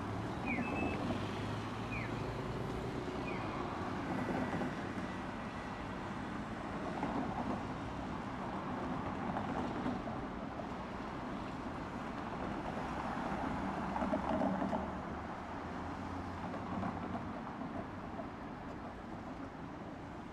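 Street traffic: a steady wash of vehicle noise that swells and fades as vehicles pass, loudest about fourteen seconds in, with a few short high squeaks in the first few seconds.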